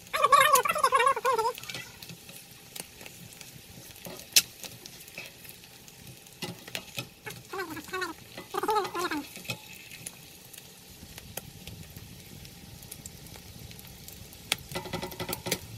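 Eggs sizzling in oil in a nonstick frying pan, while a nylon spatula scrapes and taps against the pan with scattered clicks, one sharp knock about four seconds in. A short wavering high-pitched call is heard at the start and again about eight seconds in.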